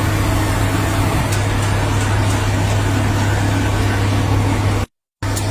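Steady, loud engine noise with a strong low hum. It cuts out completely for a fraction of a second near the end.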